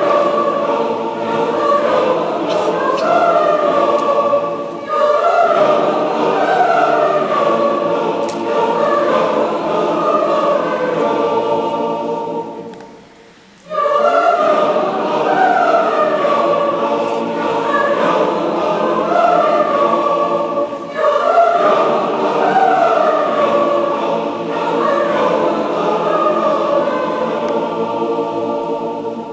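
Choir singing a Swiss juiz, a wordless yodel, in long rising-and-falling phrases. The singing drops away briefly about 13 seconds in, with shorter breaks near 5 and 21 seconds.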